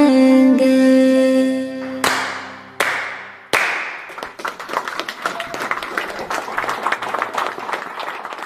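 The song's last held note ends about two seconds in. Three sharp hits follow, each ringing out, and then a crowd starts clapping and applauding, fading away near the end.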